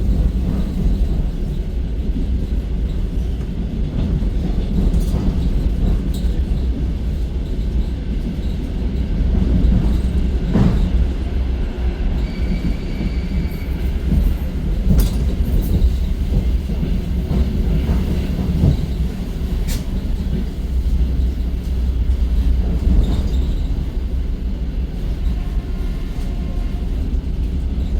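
Russian suburban electric multiple-unit train running, heard inside the carriage: a steady low rumble with an occasional sharp knock of the wheels over rail joints.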